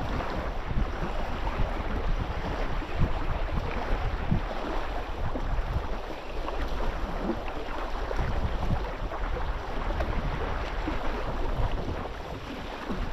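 Wind buffeting the microphone over choppy water, with small splashes and knocks of water against a boat's hull.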